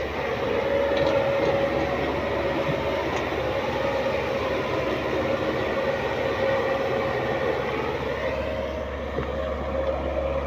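A heavy vehicle's engine running steadily, a constant drone with a held whine over it.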